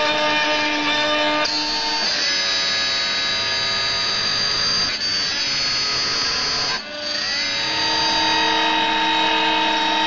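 CNC-converted Proxxon MF70 mini mill cutting 4 mm plywood with its end mill, the spindle and stepper motors giving a steady machine whine. The whining tones jump to a new pitch several times, as the axes change speed and direction along the cut, with a brief dip about seven seconds in.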